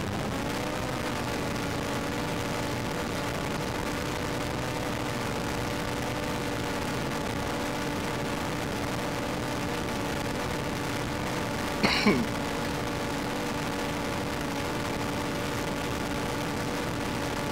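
A steady motor hum holds one pitch after settling just at the start, with a brief sharp sound about twelve seconds in.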